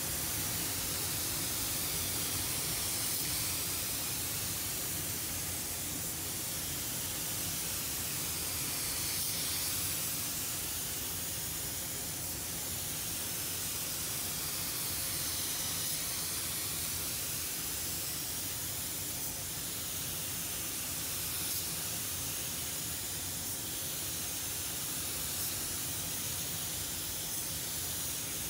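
Automotive paint spray gun spraying paint onto a car body panel: a steady hiss of compressed air and atomised paint that wavers slightly in tone every few seconds.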